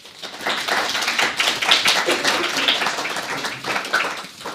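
Audience applauding: many hands clapping in a dense patter that builds up over the first second and dies away near the end.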